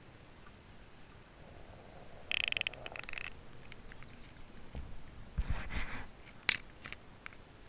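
Camera in a waterproof housing being lifted out of shallow lake water and handled: a short rapid crackling burst of water as it breaks the surface, then low knocks and splashing against the housing, and a sharp click near the end.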